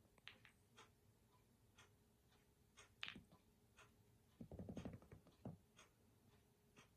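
Snooker balls knocked about by a kitten: faint scattered clicks and taps, the loudest about three seconds in, then a short low rumble of under a second.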